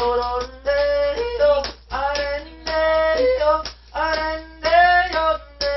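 Male yodeling in short phrases separated by brief pauses, each held note snapping abruptly up or down in pitch as the voice flips between chest voice and head voice.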